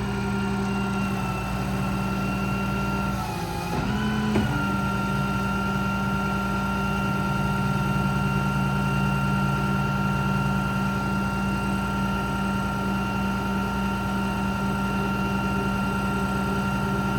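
Ram 5500's 6.7 Cummins diesel running the PTO-driven hydraulic pump while the Stellar 7621 crane is worked: a steady hum with a whine over it. The pitch sags and recovers briefly about four seconds in.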